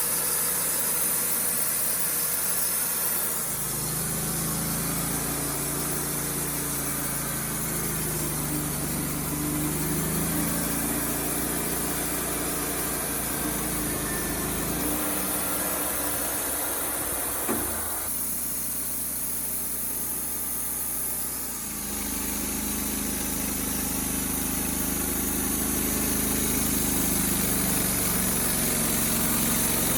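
Wood-Mizer LT35HD portable sawmill engine running steadily while milling red oak. Its note shifts about 4, 15 and 22 seconds in, and there is one sharp click near the middle.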